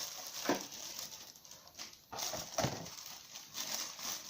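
An SSD mounting bracket being handled and taken out of its packaging: a few irregular light knocks and clicks with some rustling.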